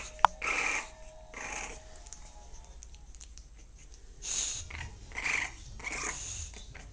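English bulldog snuffling through its nose, five short noisy breaths spread over a few seconds as it noses a small puppy, with one sharp click near the start.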